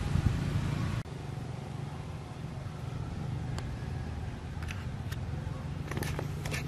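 A steady low mechanical hum, like an engine running, with a few short clicks and taps, more of them near the end.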